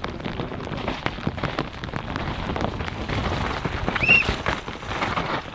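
Downhill mountain bike rattling and clattering over wet rocks and mud as it passes, with many short knocks, over a steady hiss of rain and wet trail. A brief high squeal sounds about four seconds in.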